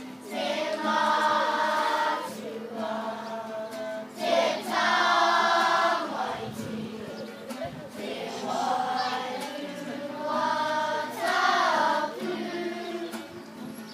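A kapa haka group of children singing together in unison, in sung phrases a few seconds long with short breaks between, accompanied by an acoustic guitar.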